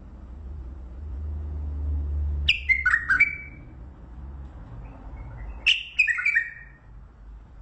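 Mandali bulbul singing two short, quick phrases of several falling notes each, about three seconds apart, over a low hum.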